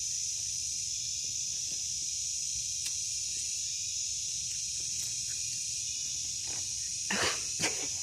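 Insects shrilling in a steady, high-pitched drone, with two brief knocks near the end.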